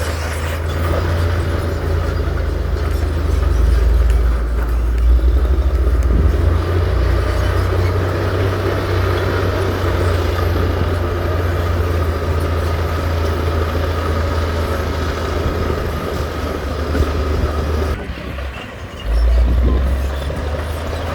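Heavy diesel engine of earthmoving machinery running steadily under load with a deep rumble. It drops briefly near the end, then comes back up.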